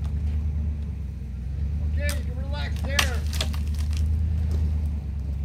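A truck engine runs steadily under a rope pull on a tree. About three seconds in there is a sharp crack, among a few short calls.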